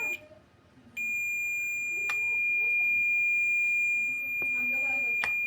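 Multimeter continuity beeper in diode mode: a short beep at the start, then a steady high-pitched beep from about a second in that holds on, with a couple of probe clicks. The unbroken beep and zero reading across the laptop motherboard's test points mean a short circuit to ground.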